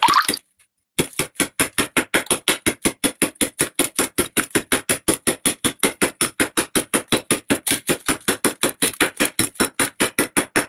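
Thick freezer frost being scraped off the freezer wall in quick, even strokes, about six a second, with a short pause just after the start.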